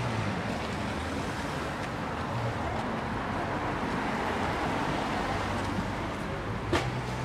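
City street ambience: steady traffic noise from passing cars, with one short, sharp click near the end.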